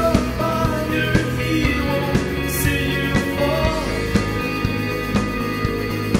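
Rock band music in a passage with no lyrics sung, a melodic lead line over drums and bass.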